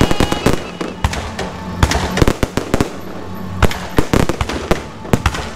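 Aerial fireworks shells bursting overhead: a rapid, irregular string of sharp bangs.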